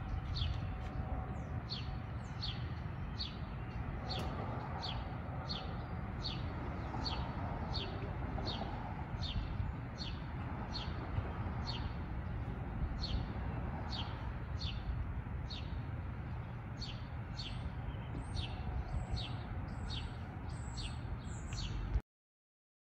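A small bird chirping over and over, short falling chirps about two a second, growing higher and less regular near the end, over a steady low rumble. The sound cuts off abruptly just before the end.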